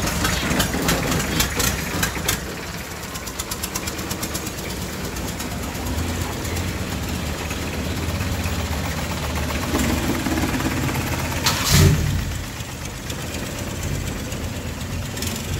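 Boat engine running steadily with a low hum, with a fast rattling in the first two seconds and a brief loud noise about twelve seconds in.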